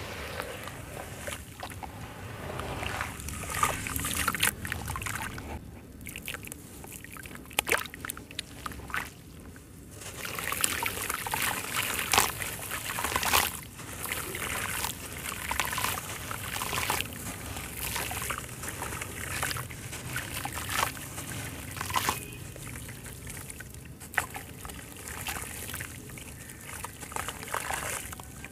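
Hands sloshing through muddy water in a plastic tub while crumbling a soaked sand-cement chunk, wet grit trickling and splashing back into the water. Short sharp crackles and splashes come throughout.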